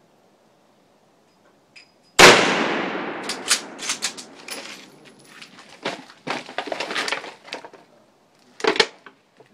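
A single loud gunshot about two seconds in, its echo dying away over a second or more, followed by a scatter of smaller clicks and knocks and another short sharp sound near the end.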